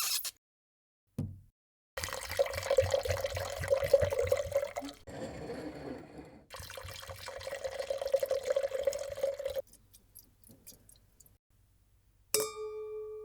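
Wine poured into a glass in two long pours, then a few faint clicks and a single clink of glasses in a toast, ringing on clearly.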